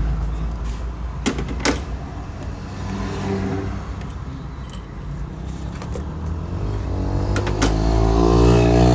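Metal tools clinking against the car's AC compressor and its mounting bolts as it is unbolted, over a steady low hum. Near the end a motor tone comes in and rises in pitch and loudness.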